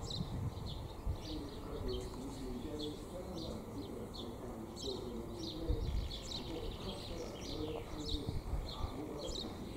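Small birds chirping and singing throughout, with a pigeon cooing in repeated low notes. Gusts of wind rumble on the microphone near the start and about six seconds in.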